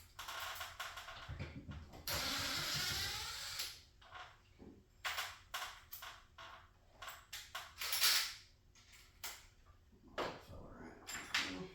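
Scattered clicks, knocks and clatter of tools and metal garage-door hardware being handled, with a few seconds of rushing noise about two seconds in and a short hiss near the middle.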